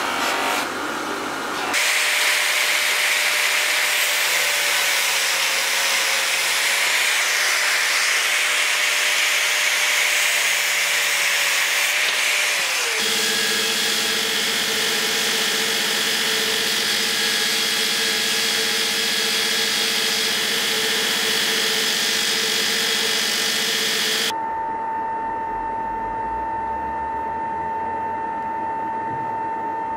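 Electric shop machines working a steel knife handle in several cuts: a bench grinder's buffing wheel polishing the metal, a loud hissing grind, and from about halfway a belt grinder grinding the steel. Near the end the grinding stops and a steady machine hum with a high whine remains.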